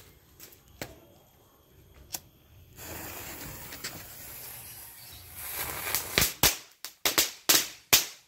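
A small ground firework fizzing with a steady hiss that swells louder, then going off in about six sharp pops in quick succession.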